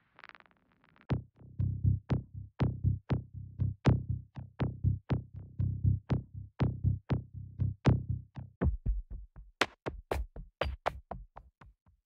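Drum loop from a cinematic loops sample pack: a steady pattern of low, pitched drum hits, about two a second. About eight seconds in it gives way to a faster, brighter pattern of hits as the next loop plays.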